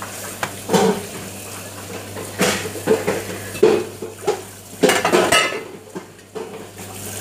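Metal dishes, pots and cutlery clattering and clinking at irregular moments as they are handled and stacked during dishwashing, over a steady low hum.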